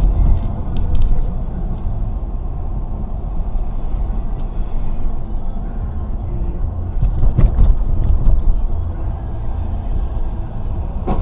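Steady low rumble of a car driving on the road, with brief knocks near the start and a cluster of louder knocks about seven and a half seconds in.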